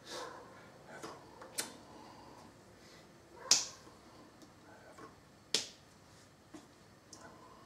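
A few sharp slaps of hands meeting while a man signs in sign language, the loudest about three and a half seconds in, with smaller ones around one and a half and five and a half seconds.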